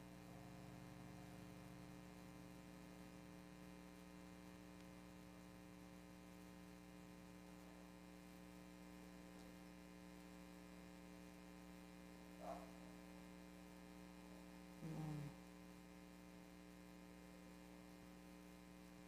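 Low electrical mains hum, steady throughout, with two faint brief sounds about twelve and fifteen seconds in.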